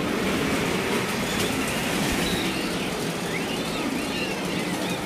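Steady din of an amusement-park ride in motion, with faint high squeals now and then.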